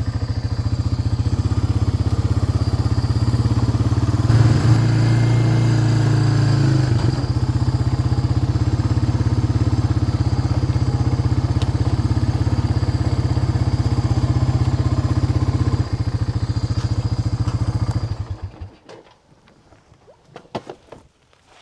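Vehicle engine running steadily at idle, briefly louder about four seconds in, then shut off near the end, leaving a few faint clicks and knocks.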